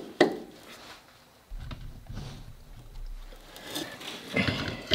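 Hands working in an old Jeep's engine bay: a sharp click, then a low rubbing rumble, and a few knocks of metal parts and tools near the end.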